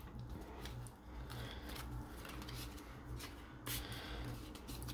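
Trading cards sliding and rubbing against each other as a hand flips through a fanned stack, with a few soft clicks and one sharper snap of card edges about three and a half seconds in.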